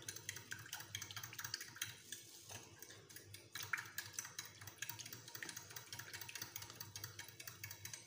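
Fork stirring in a glass bowl of milk and sugar: a steady run of faint, quick clicks and scrapes as the sugar is mixed in to dissolve.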